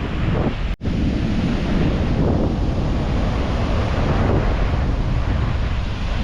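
Surf breaking on the shore with strong wind buffeting the microphone, a steady heavy rumble. The sound cuts out for an instant just under a second in.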